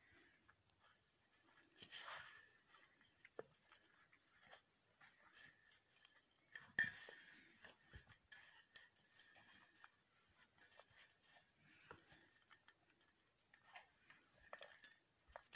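Faint, gritty scraping and rustling of fingers kneading a coarse powder-and-honey mix against a steel plate, with small scattered clicks and one sharper click about seven seconds in.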